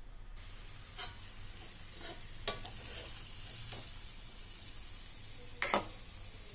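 Metal spatula scraping and knocking against an iron kadai as fried bitter gourd is scooped out, over a steady hiss of oil still sizzling in the hot pan. Several sharp clinks, the loudest a little before the end.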